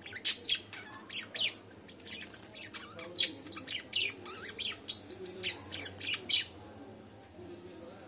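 Pet budgies and finches chirping: a quick run of short, sharp high calls, easing off about six and a half seconds in.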